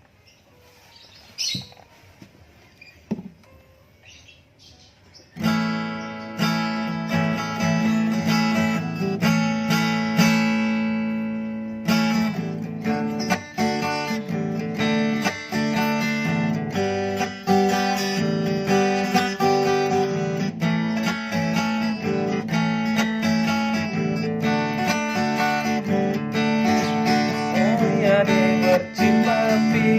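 Acoustic guitar strummed in a steady rhythm, starting suddenly about five seconds in after a few faint taps.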